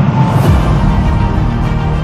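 Background music with sustained dramatic tones and a cymbal-like swell about half a second in.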